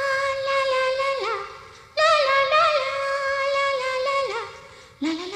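Background song: a woman singing long held high notes with quick ornaments. Each phrase fades, and new phrases begin about two and five seconds in.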